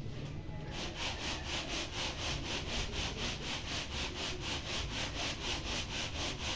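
Uncooked rice rattling and sliding across a plastic winnowing tray, shaken in a fast, even rhythm of about five shakes a second to winnow the grain. The shaking starts about a second in.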